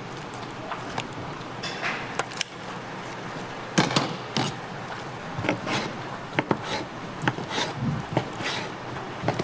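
Irregular knocks and clinks of kitchen utensils and dishes over a steady background hum, picking up about four seconds in.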